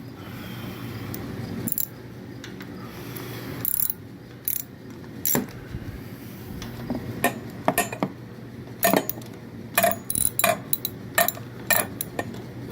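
Hand wrench on the mower's engine-shroud bolts: sharp metallic clicks and clinks of tool on bolt as the bolts are loosened, sparse at first and coming more often in the second half.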